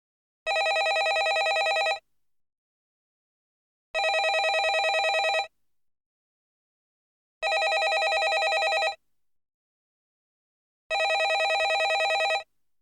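Landline telephone ringing: four rings of about a second and a half each, with a fast flutter in each ring and silence between, repeating evenly about every three and a half seconds.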